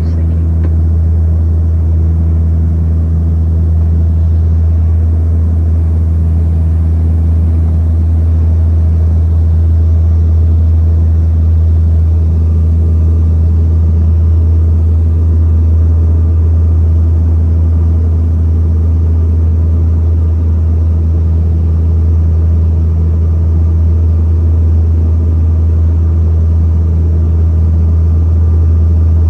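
Steady, loud drone of a small propeller plane heard from inside the cabin: a deep, constant hum with a few steady tones above it.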